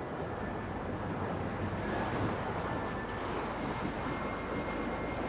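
Ocean surf breaking and washing up a sandy beach, a steady rumbling roar.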